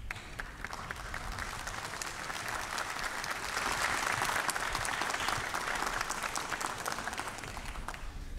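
Large crowd applauding, swelling to its loudest about halfway through and dying away near the end.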